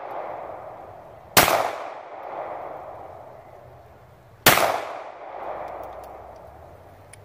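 Two shots from a compact semi-automatic pistol, about three seconds apart, each followed by an echo that fades over a second or two.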